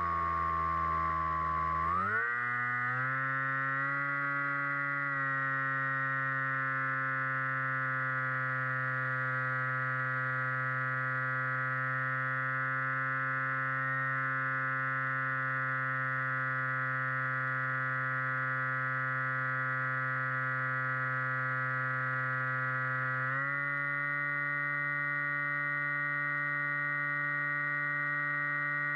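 Electric motor and propeller of an RC flying wing whining steadily, heard from the onboard camera. The pitch dips slightly, then rises sharply about two seconds in as the throttle opens, holds steady, and steps up a little again near the end.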